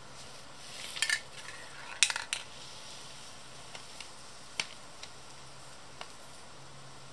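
Spray paint cans and stencil being handled: a brief hissy scrape about a second in, a quick cluster of metallic clinks and knocks around two seconds, then a few single light taps.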